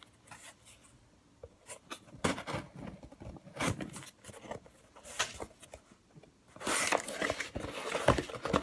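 Packaging being handled as a box is opened and unpacked: rustling and scraping with scattered light knocks, loudest in a stretch of rustling near the end.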